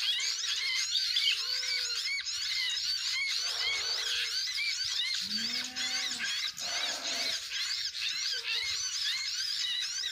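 Many small birds chirping at once in a dense, continuous chorus of short high calls. A few lower calls sound through it, and one longer, deeper call comes about halfway.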